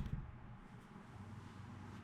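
Quiet room tone with a faint steady low hum, after a brief knock fades out at the very start.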